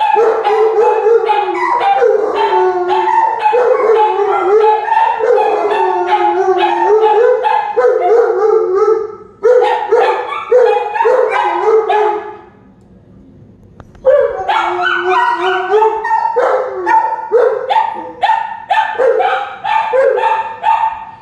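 Dog howling and yipping in short, wavering bursts, a reaction set off by tornado sirens. It breaks off for a second or so just past the middle, then starts again.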